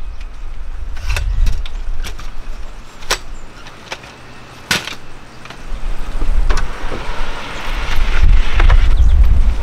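Wind rumbling on the microphone, with a few sharp clicks and knocks from a folding camp chair being opened and set down. Near the end a drawer in the ute's rear canopy is pulled out.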